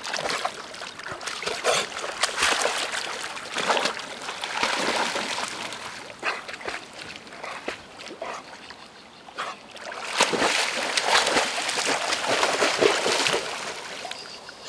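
Dog swimming, its paddling making irregular splashing and sloshing of water, louder in two stretches: a couple of seconds in and again about ten seconds in.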